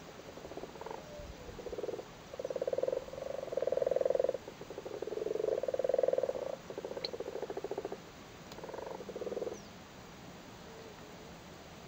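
Male common frogs giving their low breeding calls at spawning time: a string of overlapping calls, each a second or so of rapid pulses, with a pause near the end.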